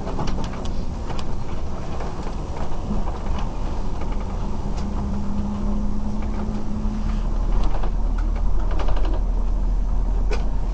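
A vehicle engine running with a steady low rumble. A hum builds from about four seconds in, and the rumble is loudest in the second half.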